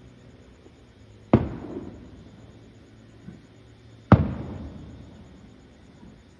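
Aerial fireworks shells bursting: two loud booms about three seconds apart, each trailing off in a rumble that dies away over about a second.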